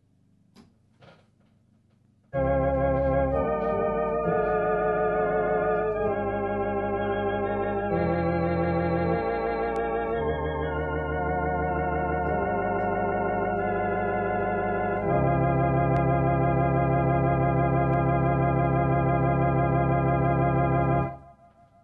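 1960s Compton Sonatina electrostatic electronic organ playing a sequence of sustained chords with a wavering vibrato, after a few faint clicks. It plays through its valve amplifier on a freshly fitted pair of EL84 output valves. The playing starts about two seconds in and cuts off just before the end.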